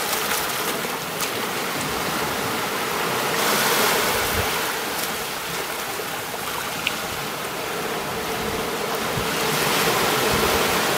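Sea waves washing onto a beach: a steady rush of surf that swells about four seconds in and again near the end. One brief click about seven seconds in.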